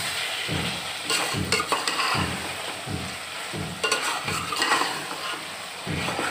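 Metal spoon scraping and stirring chicken pieces sizzling in oil with ginger-garlic, turmeric and green chilli in a metal pot: the bhuna stage of frying the masala. There is a steady sizzle under repeated scrapes of the spoon on the pot.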